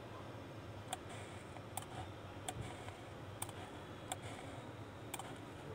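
Faint, sharp single clicks of a computer mouse, six of them spaced about a second apart, over a low steady hum.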